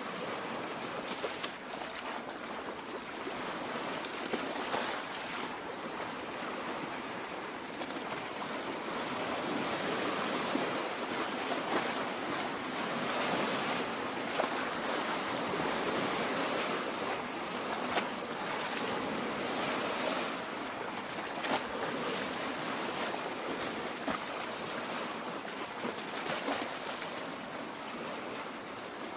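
Lake water lapping at the shore: a steady wash with many small splashes throughout.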